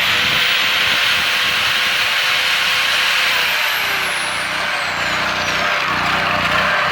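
Champion generator's small engine running after a carburetor cleaning, its speed surging: the carb cleaned up enough for it to run, but it still surges.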